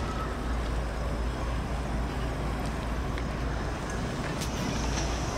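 Steady low rumble of distant city road traffic, with a faint even hiss above it.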